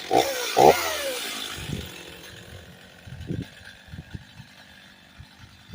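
STIHL MS 290 chainsaw's two-stroke engine giving two quick revs near the start, then its sound fades away. A few low thumps follow.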